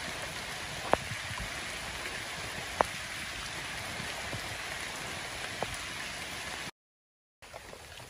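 Steady outdoor background hiss with three sharp ticks, about one, three and five and a half seconds in. The sound cuts out completely for under a second near the end and comes back quieter.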